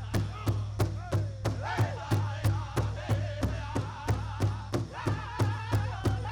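Pow wow drum group: a big drum struck in a steady beat about three times a second, with high, wavering voices singing a song over it.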